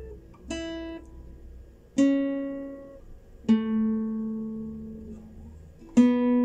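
Classical guitar played slowly one plucked note at a time, each note left to ring and fade, stepping down in pitch: the open first string, the second string at the second fret, the third string at the second fret, then the open second string, plucked twice near the end. It is the melody of the carol's second part played as a fingering demonstration.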